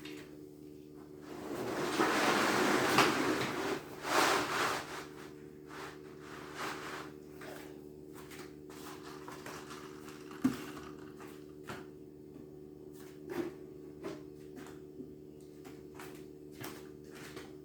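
Refrigerator ice maker's newly replaced water inlet valve running with a steady hum, which the owner calls noisier than he has ever heard. A rushing hiss comes about two to five seconds in, and there are a few scattered clicks.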